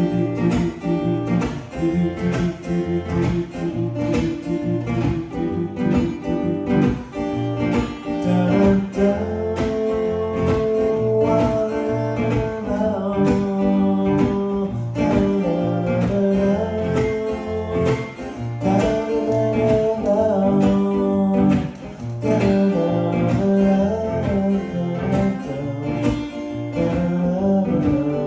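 Live song: a guitar strummed in a steady rhythm, with a higher melody line joining about nine seconds in.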